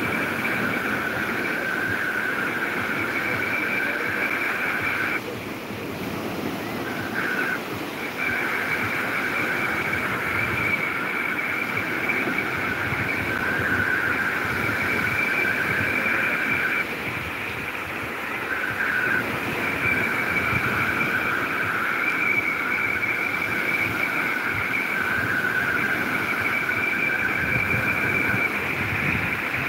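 Sea waves breaking and washing ashore, under a steady high-pitched two-tone whine that cuts out briefly about five seconds in and again about seventeen seconds in.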